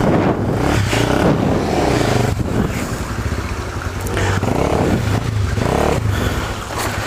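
Off-road motorcycle engine revving up and down under load as the rider works the bike through a hard section of trail.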